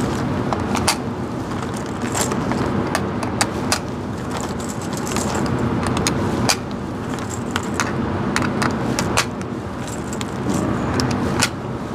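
Rifle cartridges being pressed one at a time into an AR-15 magazine, giving a string of small metallic clicks over a steady low rumble.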